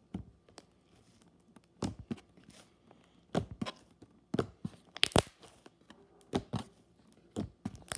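Stiff slime being kneaded and stretched by hand with foam soap mixed in, giving irregular sharp pops and crackles.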